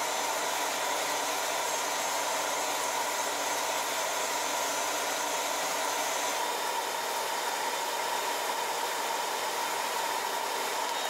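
Portable electric bandsaw running steadily while its blade cuts through a small stainless steel part: an even motor and blade noise with a steady high tone through it.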